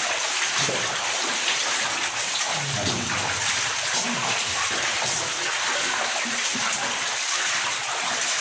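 Steady hiss of running water in a cave passage, even and unbroken, with faint voices partway through.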